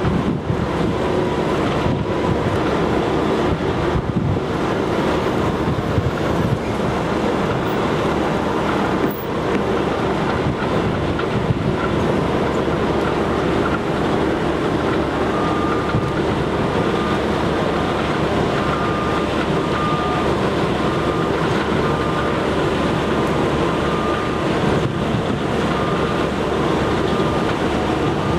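Steady rumble of construction-site machinery, with wind on the microphone. From about halfway through, a faint short beep repeats roughly once a second.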